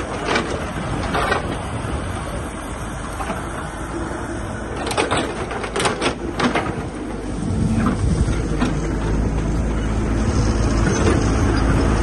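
Caterpillar hydraulic excavator's diesel engine running steadily as the bucket works through brush, with several sharp cracks of branches breaking, bunched around five to six and a half seconds in. About seven and a half seconds in the engine gets louder and stays louder, as the machine is put under more load.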